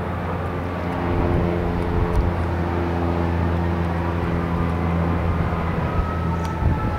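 Steady low drone of an engine, with several held tones and a faint high whine that slides slowly downward near the end.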